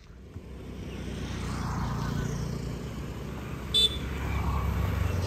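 A motor vehicle's engine rumble swelling as it passes close by, with one short, high-pitched horn toot nearly four seconds in.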